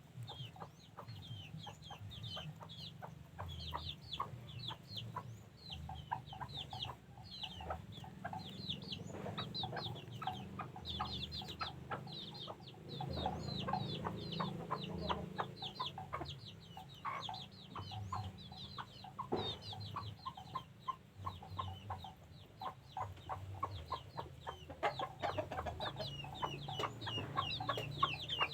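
Chickens clucking and calling, with a dense, continuous run of short, high, falling calls over lower clucks.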